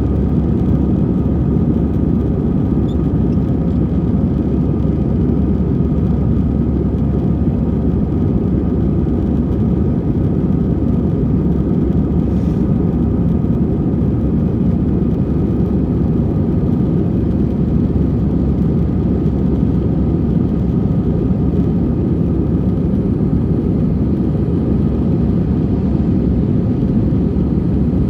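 Steady engine drone and rushing air heard from inside an airliner cabin, unchanging in level.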